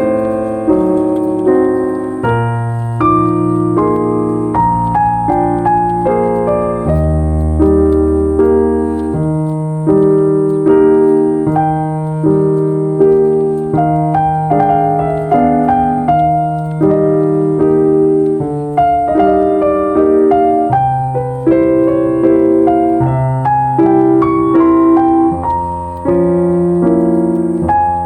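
Background piano music: a continuous run of struck notes that ring and fade, over held low bass notes.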